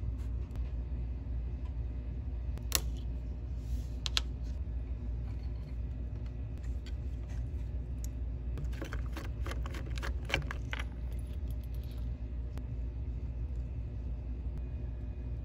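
Small metal tools ticking and clinking against a circuit board during soldering-bench work: two sharp clicks early, then a cluster of clinks about two-thirds of the way through, over a steady low hum.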